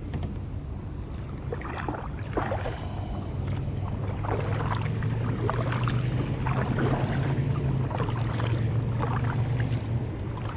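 Kayak paddling: irregular paddle splashes and knocks against the hull, over a steady low hum that grows louder partway through.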